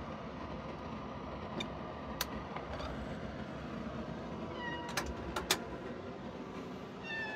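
A domestic cat meowing twice, briefly, once a little before five seconds in and again at the very end, over steady background noise, with a few sharp clicks in between.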